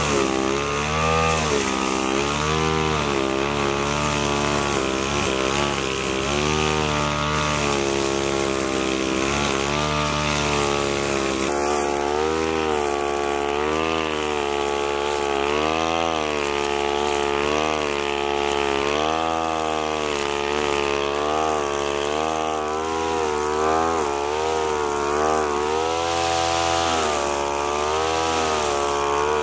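Two-stroke backpack brush cutter running, its engine pitch rising and falling over and over as the metal blade sweeps through grass.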